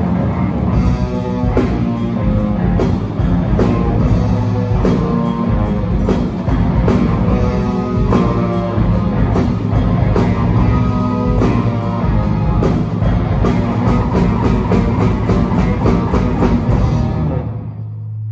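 Live rock band playing loudly, with electric guitars over a drum kit and a steady run of drum hits. The music stops near the end, leaving a low steady hum.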